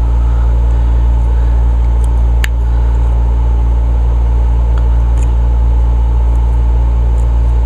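Loud steady mechanical hum with a low drone and a few fixed tones, with one sharp metallic click about two and a half seconds in and a couple of faint ticks later, from small hand tools on a carburetor.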